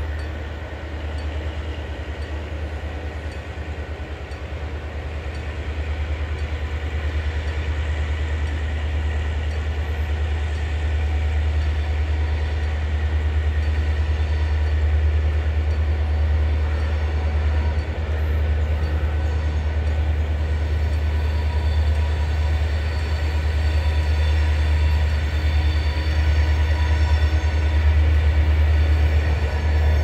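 EMD G26C diesel-electric locomotive working under load as it hauls a loaded freight train, its two-stroke diesel giving a deep, steady drone that grows gradually louder as the train approaches.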